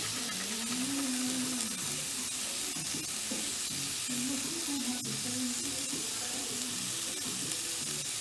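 Steady sizzling hiss of food frying, with a faint low wavering tone underneath.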